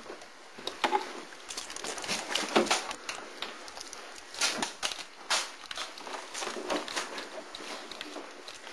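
Scattered irregular clicks, taps and rustles, the handling and movement noises of people creeping about with their gear, with a few sharper knocks among them.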